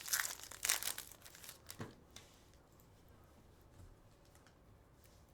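Card pack wrappers crinkling and tearing as they are opened and handled: a few quick rustles in the first two seconds, then it goes quiet.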